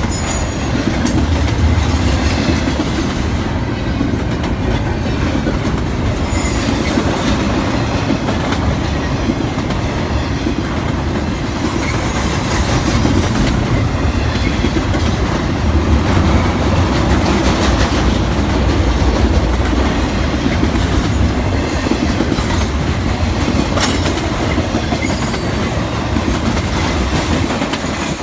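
CSX intermodal freight train rolling past: a steady rumble and rattle of the cars with wheels clicking over the rail joints, and a couple of brief high wheel squeals.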